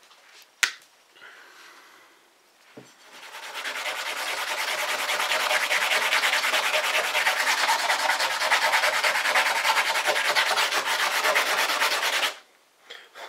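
A small glass Christmas-tree light bulb rubbed rapidly back and forth on a sheet of P150 sandpaper, grinding its end off: an even, fast scratching that builds up about three seconds in and stops abruptly near the end. A single sharp click comes a little under a second in.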